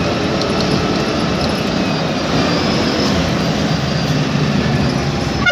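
Steady engine and road noise of a moving bus, heard from inside the driver's cab.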